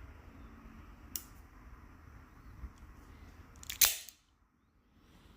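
Microtech Combat Troodon out-the-front knife working: a faint click about a second in, then a loud, sharp snap as the spring-driven blade fires out or slams back.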